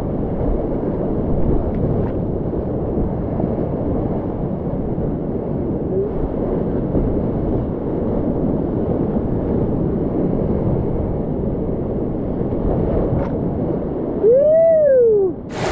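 Whitewater rapids rushing and crashing around a kayak, a steady heavy roar of water. Near the end comes one loud whoop that rises and falls in pitch over about a second.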